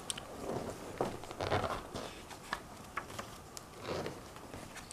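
Pages of a picture book being turned and handled: soft paper rustling with a few light taps and clicks.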